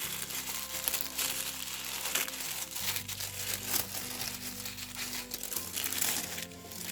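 Paper packaging crinkling and rustling in irregular handfuls as an art-supply subscription box is unpacked.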